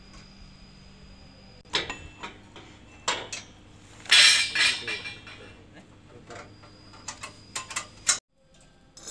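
Steel swing-chair frame parts knocking and clinking as they are handled and fitted: scattered sharp metal knocks, then a longer clattering burst about four seconds in. The sound cuts off abruptly near the end.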